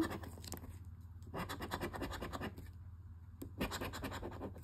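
Scratch-off lottery ticket being scratched with a hand-held scratcher in three short bouts of rapid rasping strokes, the coating rubbing off the number panels.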